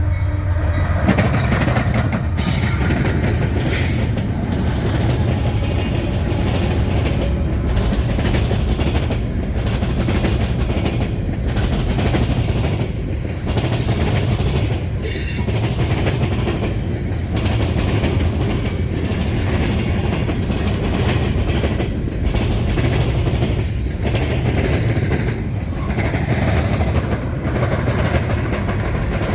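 Union Pacific train cars rolling past at close range: a steady rumble and wheel clatter on the rails that dips regularly about every two seconds as car after car goes by.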